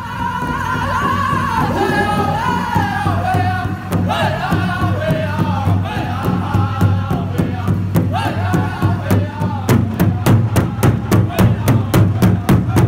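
Pow wow drum group: men singing in high voices that fall in pitch, over a large hide drum. About nine and a half seconds in the singing stops and the drum's steady beat comes forward, a little under three beats a second.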